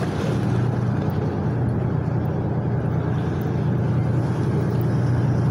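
An engine running steadily: a low, even drone with no change in pitch.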